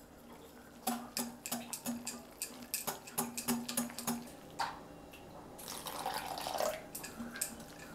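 Metal wire whisk beating a thick, wet flour-and-water batter in a glass bowl: quick repeated clicks and taps of the wires against the glass, giving way to a softer wet swishing near the end.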